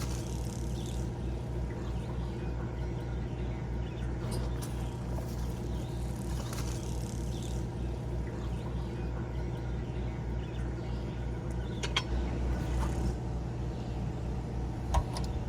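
A steady low mechanical hum, like a motor or engine running, with a few faint clicks near the end.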